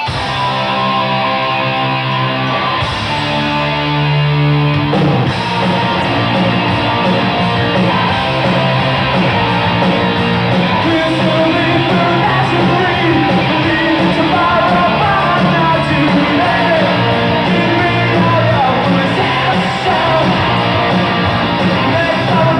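Live rock band playing loud, with distorted electric guitars, bass and drums. Held guitar chords give way about five seconds in to the full band driving on, with a sung vocal over it.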